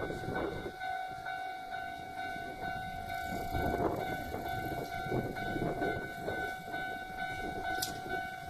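Level-crossing warning bell ringing over and over while an electric train runs past, its wheels rumbling and clattering on the rails.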